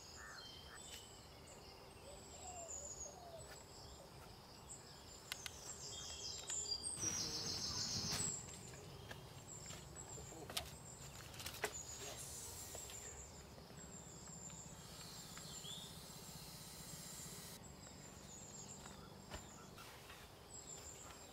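Faint outdoor ambience with birds chirping over and over in short, high notes, a few scattered clicks and knocks, and a brief burst of noise about seven seconds in.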